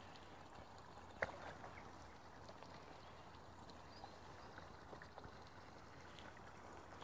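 Near silence: faint open-air background with a low hum, broken by one sharp click about a second in and a few faint ticks after it.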